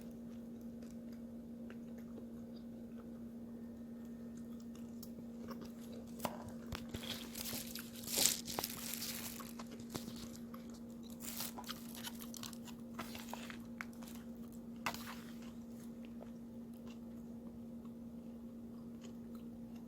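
A person chewing a crunchy salad of lettuce, cucumber and kimchi, with scattered crunches through the middle, the loudest about eight seconds in. A steady low hum runs underneath.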